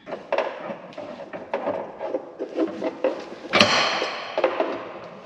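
Heavy truck hub parts being handled and moved: a run of knocks and clanks, with one loud scrape lasting just under a second about three and a half seconds in.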